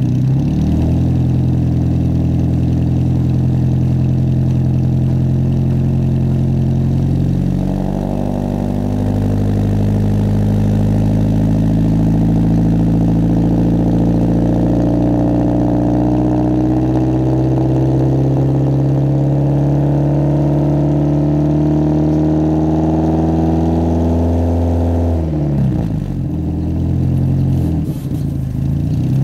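Exhaust of a 1996 Toyota Corona Exsior through a loud aftermarket muffler. The engine idles, then is brought up to a raised rev about eight seconds in and held steady. It drops back around twenty-five seconds in, with a brief rise and fall before settling near the end.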